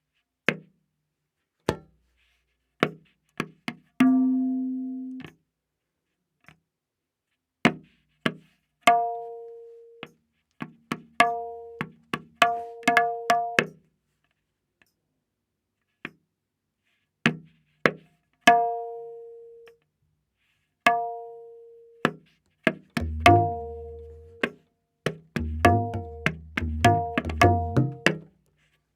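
Tabla playing a slow vilambit ektaal theka: sparse strokes on the dayan, tuned to A#, ring out at one pitch, with long pauses between groups of strokes. Deep bayan bass strokes come in clusters near the end.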